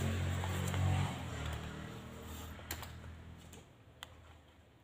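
A few sharp isolated clicks of computer keyboard keys being pressed, after a low hum fades away over the first couple of seconds.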